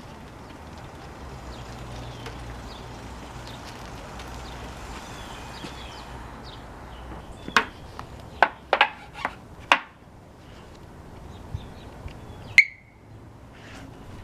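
Steady background hum with faint bird chirps, then a run of about half a dozen sharp clicks and knocks in the second half, the loudest near the end with a brief ringing tone.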